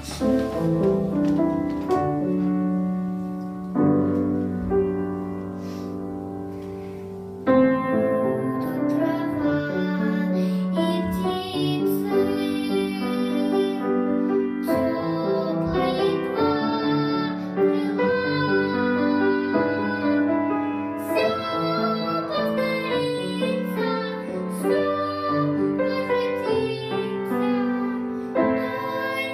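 A song with piano accompaniment: piano chords alone for the first several seconds, then a voice, likely a child's, comes in singing over the piano from about seven seconds in.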